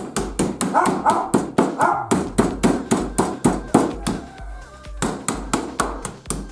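Meat mallet pounding slices of raw meat flat on a plastic cutting board, a steady run of dull blows at about three to four a second.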